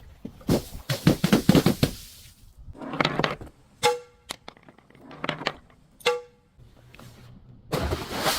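Crunching and cracking of things being crushed, in several clusters of rapid impacts. Twice, a sharp clink rings briefly with a clear tone, like struck glass.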